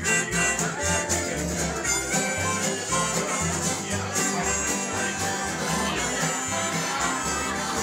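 An acoustic bluegrass band of fiddles, acoustic guitars and upright bass playing together, with the bass plucking a steady beat under the strummed guitars.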